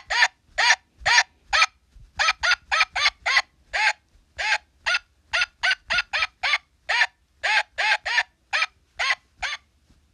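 Electronic toy's speaker playing a rapid run of short honking bird calls, about three a second, with a brief pause partway through, cutting off just before the end.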